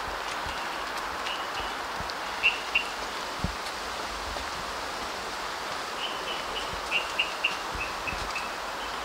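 Steady hiss of wind through wet forest foliage, with a small bird giving short high chirps: a few early on, then a quick run of them about six seconds in.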